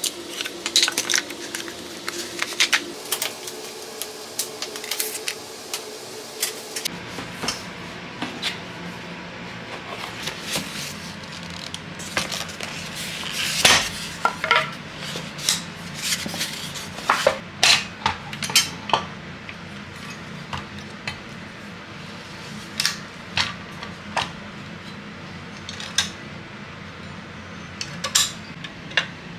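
Snow Peak Home & Camp Burner, a folding cassette gas stove, being handled: scattered metal clicks, clinks and knocks as its parts are taken out and its legs and pot supports are swung open and snapped into place.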